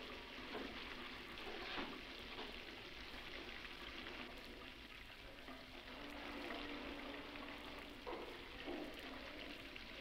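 Faint, steady hiss with light crackling throughout. A faint low steady tone comes in about six seconds in and fades after about two seconds.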